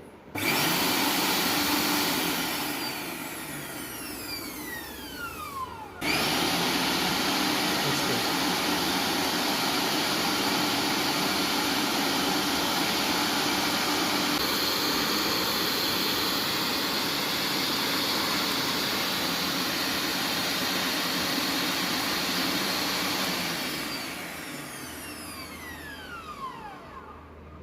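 Preethi Blue Leaf Platinum 750-watt mixer grinder motor running at full speed. It runs briefly, is switched off and winds down with a falling whine, then is switched on again for a long steady run. Near the end it is switched off and its whine falls as the motor coasts to a stop.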